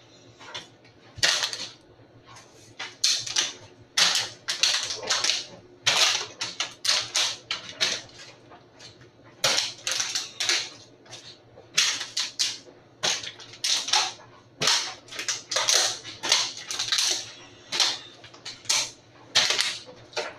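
Beatboxing: sharp hissing and clicking mouth percussion hits in an uneven rhythm, roughly two a second, with a few short pauses.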